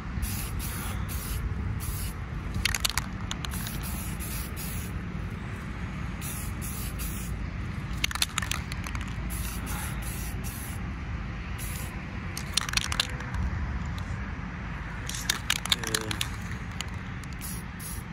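Aerosol spray paint can hissing in a series of short bursts, as stripes and blotches of paint are laid onto a rifle.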